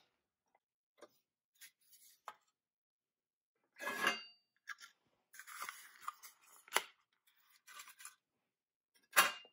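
Hands handling a toy pickup: a molded plastic interior insert is pulled out of the truck's body, with light clicks and taps, a scraping rustle about four seconds in, and clattering plastic-on-metal clacks, the sharpest near the end.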